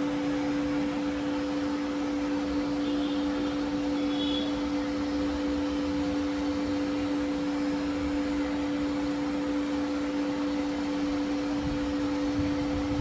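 Bambu Lab P1S 3D printer running, a steady machine hum of fans with two constant low tones over an even whir.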